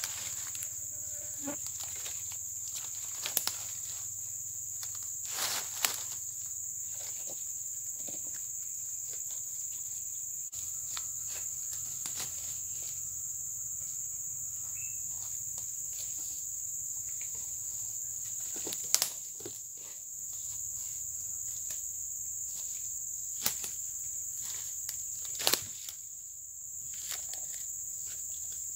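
Steady high-pitched drone of tropical forest insects, with a handful of sharp clicks and knocks from hammock and backpack gear being handled.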